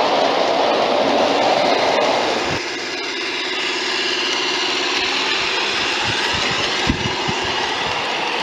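Model garden-railway train rolling along its track with a steady rumble. About two and a half seconds in, the sound changes to the Deutz diesel locomotive model's Dietz sound module playing a diesel engine running steadily, with short clicks of the wheels on the track in the second half.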